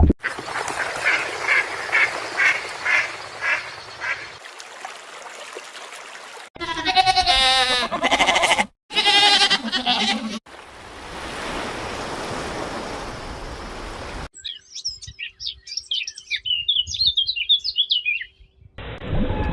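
Animal and bird calls from several short clips cut together: first a run of about seven evenly repeated calls, then harsh warbling calls, then a stretch of hiss, and near the end small birds chirping rapidly.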